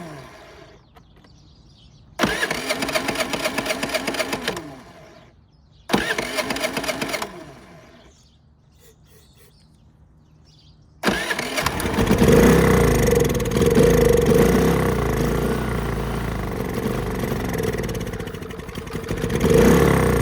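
Predator 3500 generator's small single-cylinder engine firing on carb cleaner: it runs briefly twice and winds down, then catches about 11 seconds in and keeps running, its speed swelling and easing. It starts on carb cleaner but not on its own fuel, the sign of a fuel delivery problem.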